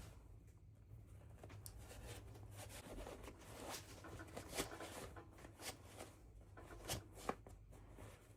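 Faint rustling and crinkling of packaging being handled, with a few sharp small clicks in the second half.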